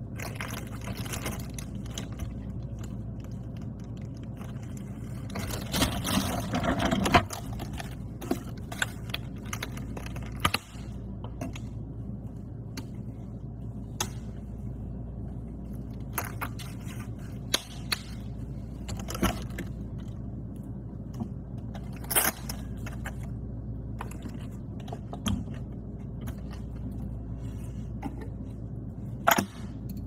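Eating at an open fridge: chewing and crunching, with rustling of a plastic zip-lock bag and a plastic berry clamshell and many short sharp clicks and knocks as containers are handled. A louder stretch of rustling comes about six seconds in, over a steady low hum.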